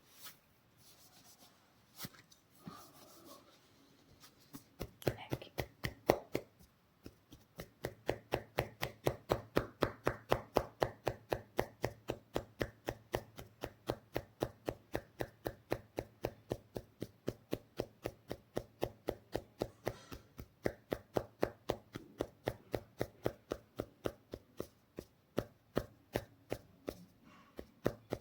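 Percussive hand massage strokes: hands chopping against the body in a fast, even rhythm of about three to four strikes a second, starting a few seconds in after faint rubbing.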